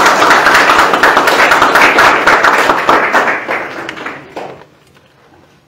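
Audience applauding: dense clapping that tails off and stops about four and a half seconds in.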